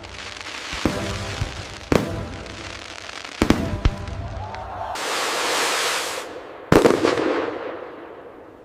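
Fireworks shells bursting in the air: a few sharp bangs, two close together around three and a half seconds in, then a long crackling hiss and a last loud bang near seven seconds that dies away.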